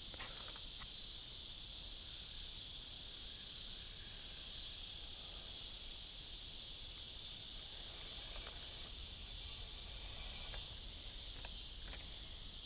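Steady, unbroken high-pitched chorus of insects.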